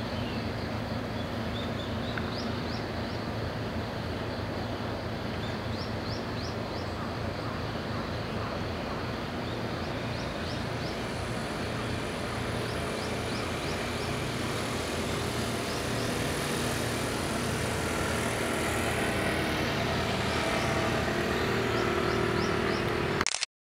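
Distant outboard motors of small open fishing boats running at low speed over a steady outdoor hum, growing a little louder in the second half, with short high chirps in small runs now and then. The sound cuts off abruptly near the end.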